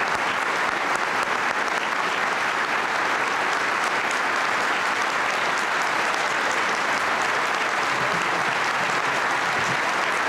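A large banquet audience applauding steadily, sustained clapping after a speech.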